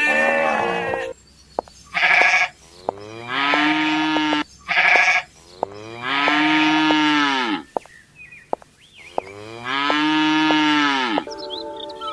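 Farm animals bleating, about six separate calls each rising and then falling in pitch, the longer ones lasting over a second.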